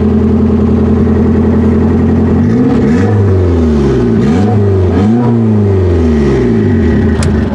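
Turbocharged Acura Integra engine running loud and steady, with its pitch swinging up and down a few times in the middle, then shut off near the end. The exhaust stops short of the rear of the car.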